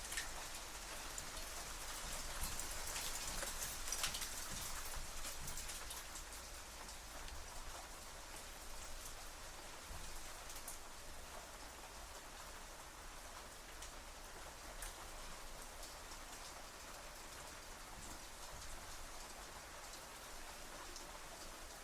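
Hailstones hitting metal shutters, a dense spray of small sharp ticks. It is heaviest in the first five seconds or so, then eases to a steadier, lighter fall.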